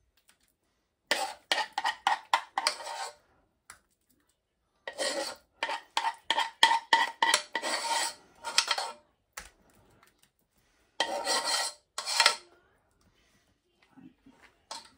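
A spoon scraping mashed potato out of a non-stick saucepan into ceramic bowls, clinking against the pan and bowls. The strokes come in three quick runs of about four a second, with short pauses between.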